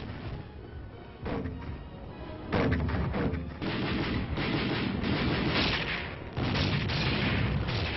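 Artillery guns firing: a run of heavy blasts, with sudden loud ones about two and a half seconds in and again past six seconds, over background music.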